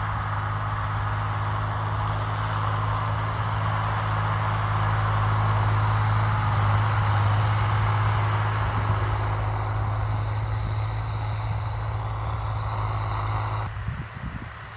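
Zetor Crystal 12045 tractor's six-cylinder diesel engine running steadily under load while pulling a harrow: a deep, even drone. Near the end it suddenly drops to a much quieter sound.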